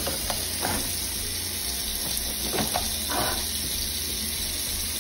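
Kitchen tap running a steady stream of water into the sink, with a few light knocks over it.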